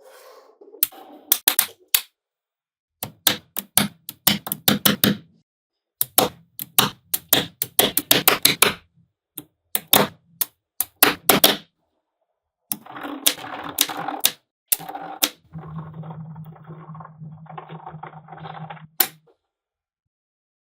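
Small magnetic balls snapping together, heard as quick runs of sharp clicks. Later there are several seconds of continuous rattling as the balls roll and slide against one another, and a single click near the end.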